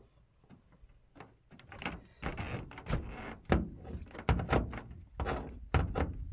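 Irregular knocks and thumps on roof panels, starting about two seconds in and getting heavier toward the end.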